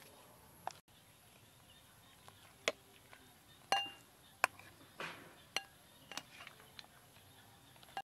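Metal ladle clinking against an aluminium cooking pot and a serving bowl as soup is ladled out: a string of separate sharp clinks, one ringing briefly a little under four seconds in.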